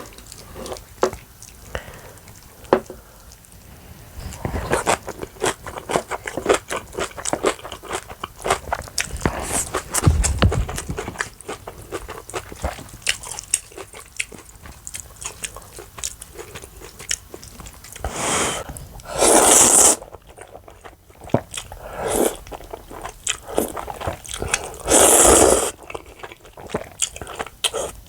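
Close-miked eating sounds: crunchy bites and chewing, with many small wet clicks. Two louder noises about a second long come in the second half.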